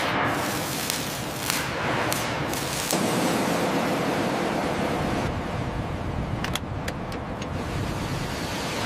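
Arc welding crackling and hissing with scattered sharp pops. About three seconds in, this gives way to a steady low rumble with a few sharp metallic clicks.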